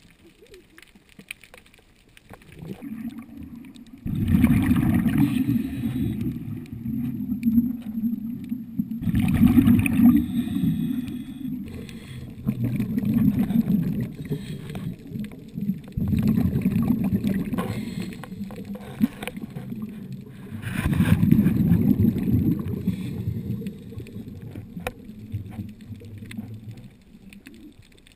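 Underwater, a scuba diver's exhaled bubbles rumble and gurgle past the camera in swells of two to four seconds, repeating every few seconds from about four seconds in.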